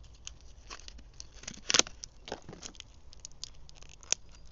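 Small clicks and rustling from handling a DJI Action 4 action camera and its small plastic parts, with a louder rustle about two seconds in and a sharp click near the end.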